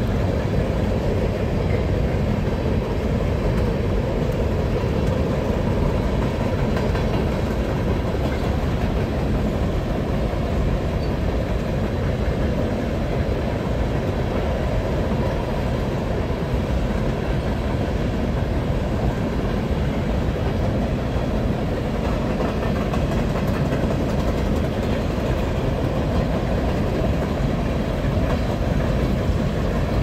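Freight cars of a BNSF train rolling steadily across a steel truss bridge.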